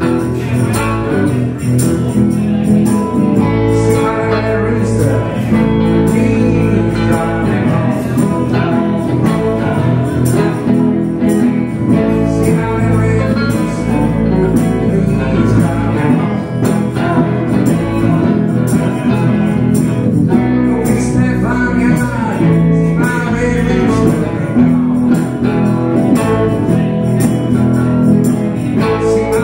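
Live blues band playing, with electric and acoustic guitars.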